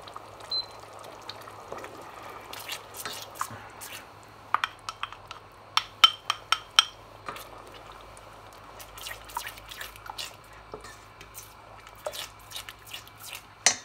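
A small metal spoon clinking and scraping against a glass jar and the rim of a stainless steel saucepan as a thick paste is scooped out and dropped into the sauce: a string of sharp little clicks and taps, thickest around the middle and again near the end.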